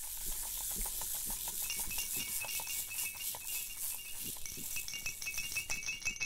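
Coloring on paper: rapid, irregular back-and-forth scratching strokes of a drawing tool, with a thin squeak joining in about two seconds in.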